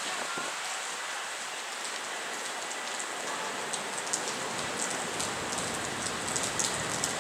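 A steady, even hiss with scattered sharp high ticks, the kind of sound rain makes. The ticks grow more frequent in the second half.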